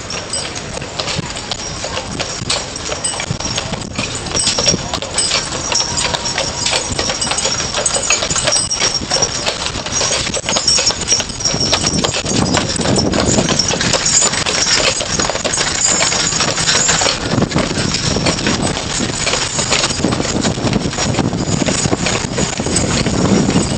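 Shod hooves of a pair of Shire horses clip-clopping on the road as they pull a horse-drawn omnibus past, growing louder as the horses draw close about halfway through.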